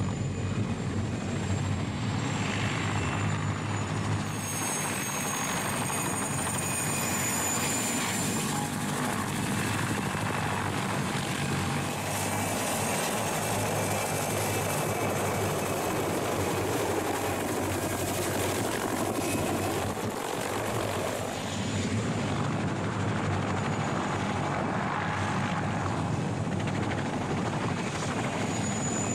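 Mil Mi-2 helicopter's twin turboshaft engines and rotor running close by in low flight. The noise is steady, with a high turbine whine that shifts in pitch about five seconds in.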